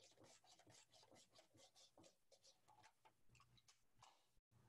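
Very faint, quick rasping strokes of an apple being slid back and forth across a mandolin slicer's blade, cutting thin slices, about four or five strokes a second, thinning out after two or three seconds; otherwise near silence.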